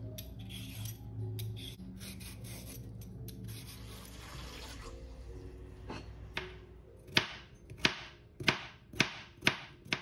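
Vegetable peeler scraping along a carrot in repeated strokes, with soft background music. In the last few seconds a run of sharp knocks comes about twice a second and is the loudest sound.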